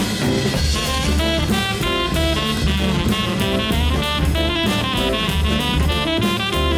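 Live jazz band playing: a saxophone line of quick notes over drum kit, double bass and piano.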